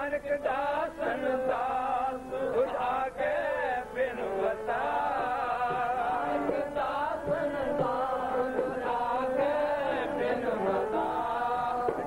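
Sikh keertan: a man singing a Gurbani hymn over a steady harmonium, his voice gliding between long held notes.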